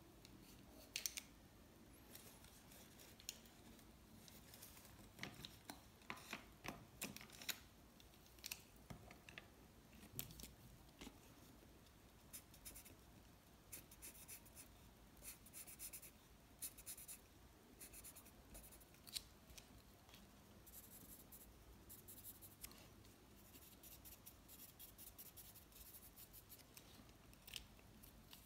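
Felt-tip marker hatching short diagonal strokes on paper: faint, quick scratchy strokes in irregular runs, with a few sharper ticks.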